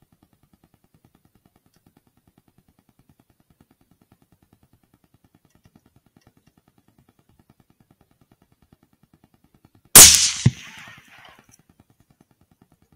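A single rifle shot about ten seconds in: one very loud, sharp crack that dies away over about a second, with a smaller second report about half a second after it.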